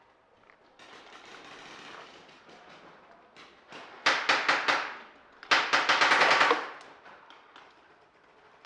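Paintball marker firing two rapid strings of shots, the first under a second long and the second about a second long, a little over half a second apart.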